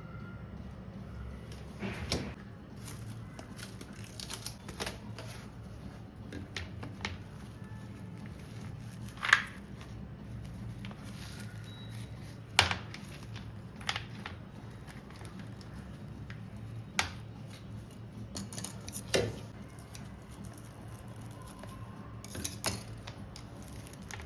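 Irregular light clicks and knocks of small objects being handled, a second or more apart and the loudest about nine and twelve seconds in, over a low steady hum.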